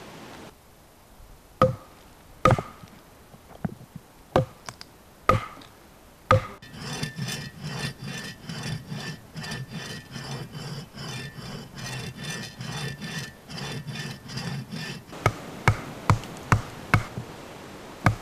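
Hand-tool work on wood: a few sharp knocks, then about eight seconds of steady back-and-forth rasping strokes, roughly three a second, then a quicker run of knocks near the end.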